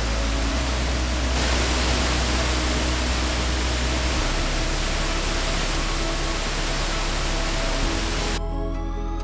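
Large waterfall plunging into a pool in a rocky gorge: a loud, steady roar of falling water. It cuts off suddenly near the end as music takes over.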